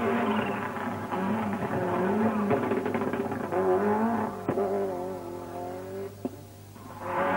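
Toyota Celica GT-Four rally car's turbocharged four-cylinder engine revving hard on a special stage, its pitch climbing and dropping with each gear change. The sound dies away about six seconds in, then rises again just before the end as a car comes near.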